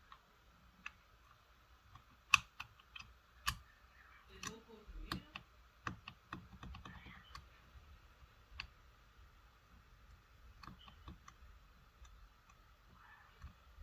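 Irregular light clicks and taps of small tools and phone parts being handled during a smartphone teardown and reassembly, the sharpest click about two seconds in, with a busier stretch of handling from about four to seven seconds, then only occasional ticks.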